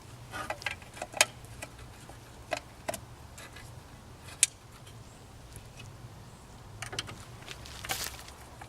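Scattered light plastic clicks and small rattles of a vehicle bulb socket and light housing being handled and twisted by hand, over a low steady hum.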